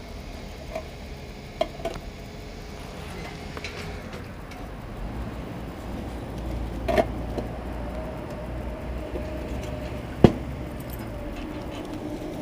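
Small metallic clicks and clinks as a scooter's fuel cap and keys are handled, over a steady low hum that grows a few seconds in; a single sharp click about ten seconds in is the loudest sound.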